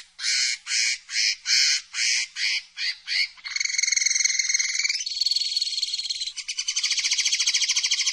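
Common linnet singing one song phrase: a run of about eight short repeated notes that speed up, then three rapid trills, each lasting a second or more, and the song cuts off sharply near the end.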